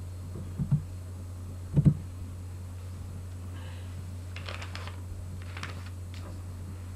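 Steady low hum with two dull knocks, about a second and two seconds in, the second one louder. A few faint clicks follow in the second half, like handling noise at a computer desk.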